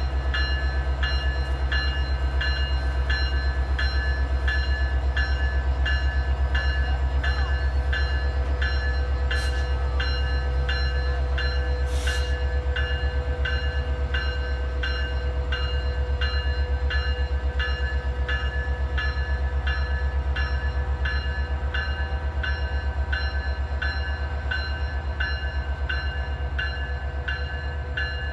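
Canadian Pacific diesel locomotive engine running with a deep, steady rumble, while a bell rings on and on at about two strokes a second.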